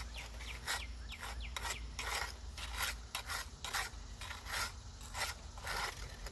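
Steel tuckpointer scraping mortar off a trowel edge and packing it into brick mortar joints: quick, repeated gritty scraping strokes, about two or three a second.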